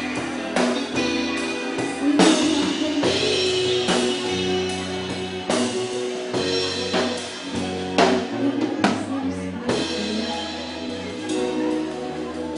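Pop-rock band playing a song, with a drum kit, electric guitar and keyboard, and drum and cymbal hits every second or two.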